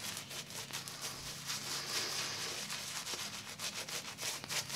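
Zenith shaving brush swirling and whipping shaving soap into lather in a bowl: a continuous wet rubbing and swishing made of many quick irregular strokes.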